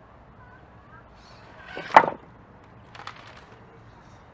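A 1/10 scale RC rock crawler on steel wheels knocking against stone as it climbs over rocks. There is one sharp clack about two seconds in, the loudest sound, then a few lighter clicks about a second later.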